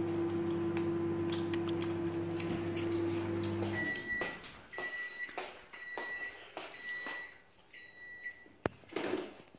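A kitchen appliance runs with a steady hum that cuts off about four seconds in, followed by five high electronic beeps about a second apart, the usual end-of-cycle signal. Light clicks and knocks come through between the beeps.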